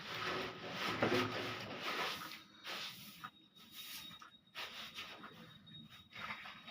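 A handheld jhadu broom sweeping a floor: a run of swishing strokes, roughly one a second.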